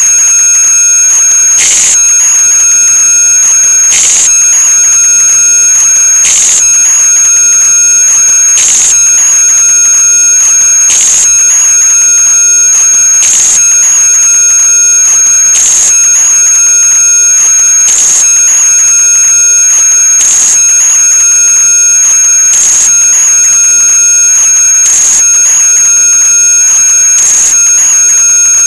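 A loud, steady, high-pitched tone over hiss, with a short pulse about every two and a quarter seconds.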